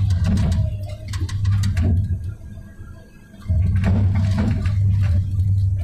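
Komatsu 290 hydraulic excavator's diesel engine and hydraulics working hard, heard from inside the cab as a loud, low, steady drone. The drone eases off briefly a little before the midpoint and surges back at about three and a half seconds. Through the first two seconds rocks and dirt knock and scrape against the digging bucket.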